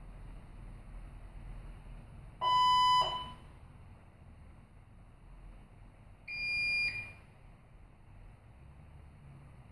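Two electronic beeps about four seconds apart, each lasting well under a second, the second higher-pitched than the first, over a faint low hum.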